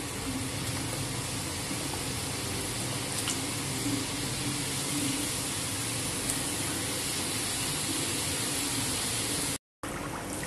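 Samosas deep-frying in hot oil: a steady sizzle with a few faint pops. It cuts out for a moment near the end, then goes on.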